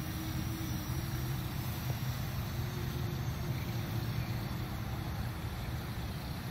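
Parrot ANAFI quadcopter in flight, its propellers giving a faint steady hum that fades about four seconds in, over a steady low outdoor rumble.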